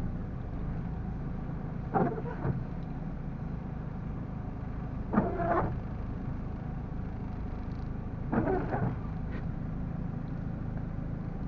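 Car running, heard from inside the cabin: a steady low engine and road hum, with a few short louder sounds about two, five and eight seconds in.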